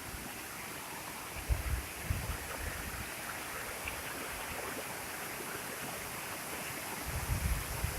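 Steady rushing of the Efrata waterfall and its stream. A few low bumps on the microphone come about a second and a half in and again near the end.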